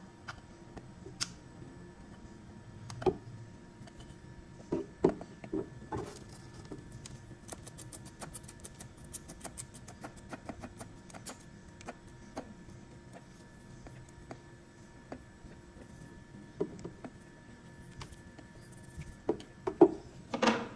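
Small flush cutters snipping and snapping bits of plastic off the edge of a 3D-printed part: scattered sharp clicks and cracks, a run of quick faint ticks in the middle, and a few louder snaps and knocks near the end.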